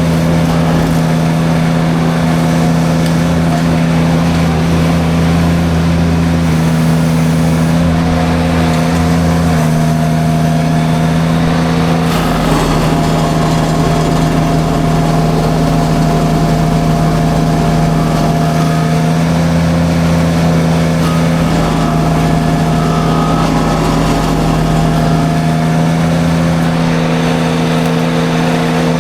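Derette V1000 mini skid steer's engine running hard and steady while driving a drum forestry mulcher through light brush. The engine note shifts a little about ten and twelve seconds in as the load changes.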